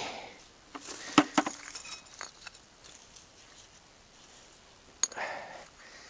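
Rubble being picked out and handled, pieces of glass and scrap metal clinking: a cluster of sharp clinks about a second in and one more about five seconds in, followed by a brief rustle.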